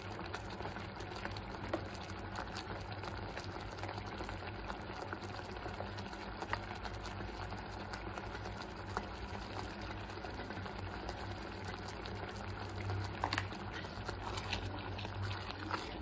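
Thick tomato purée bubbling as it cooks in a pan: a steady hiss dotted with many small pops, and a few sharper clicks near the end.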